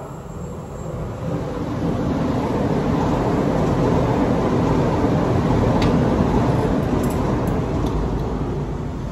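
A passing train: a rumbling noise that swells over the first couple of seconds, is loudest mid-way, and fades toward the end, with a few faint clicks in between.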